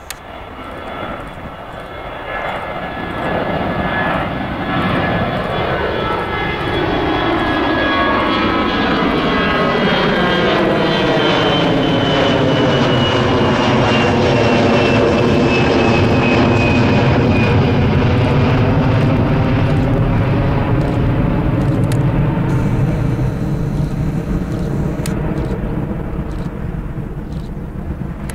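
Airbus A320-214's two CFM56-5B turbofan engines at takeoff climb power as the jet passes overhead. The engine noise builds over the first few seconds and is loudest around the middle. A high fan whine falls in pitch as the aircraft goes past, and the noise then eases a little as it flies away.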